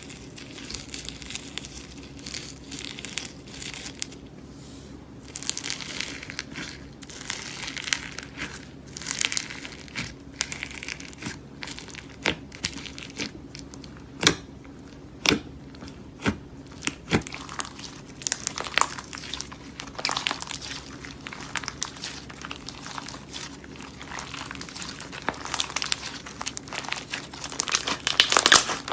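Slime being squished and worked by hand, giving a continuous crackling, crinkling sound with sharp pops, a run of about one pop a second in the middle and a cluster near the end.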